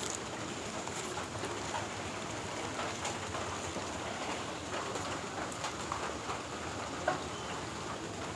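Steady rain, an even hiss with scattered light taps.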